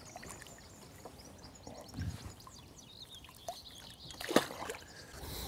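Quiet lakeside with a soft thud about two seconds in and a short, sharp splash about four and a half seconds in, as a caught chub is slipped into a keep net.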